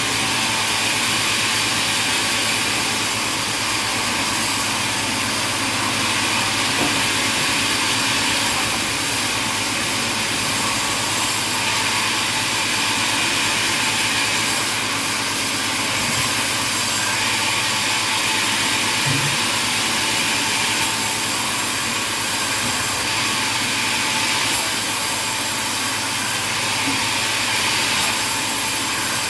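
Sawmill machinery running, a steady, even noise that holds at one level throughout.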